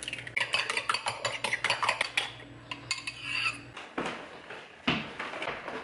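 A fork beating eggs in a ceramic bowl: fast, rapid clinks of metal on ceramic for about three and a half seconds. After that, two separate louder knocks.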